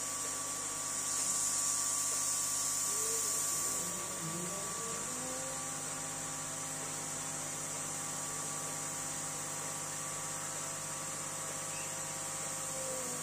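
Sculpfun diode laser engraver running a cut: a steady fan hiss, with the motors' whine gliding up in pitch about four to five seconds in, holding steady, then gliding down near the end.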